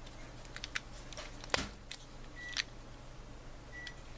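Scattered small clicks and taps of hands handling model parts, copper rod and tools on a workbench, with one louder knock about one and a half seconds in and two brief high squeaks later on.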